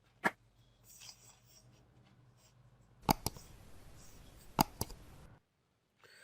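Hands mixing and kneading crumbly bread-crumb fishing bait: a soft rubbing rustle broken by a few sharp clicks, two pairs of them about three and four and a half seconds in.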